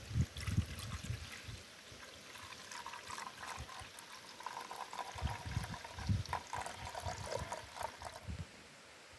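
Water trickling in a thin stream, stopping shortly before the end, with a few low thumps.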